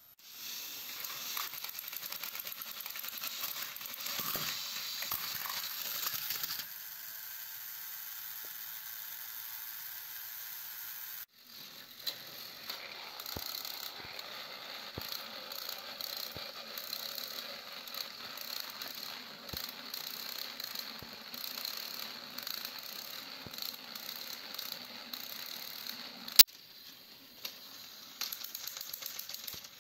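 Battery-powered toy train engines running coupled together on plastic track, their small motors and gears whirring and their wheels rattling and clicking over the track. The sound breaks off suddenly about eleven seconds in and resumes straight away, and there is a single sharp click near the end.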